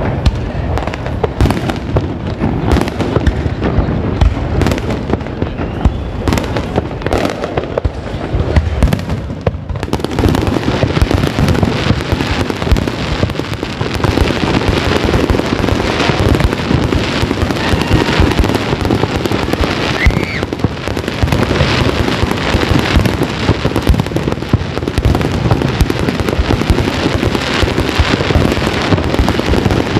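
Fireworks display: a rapid, unbroken run of bangs and crackling, growing denser from about ten seconds in.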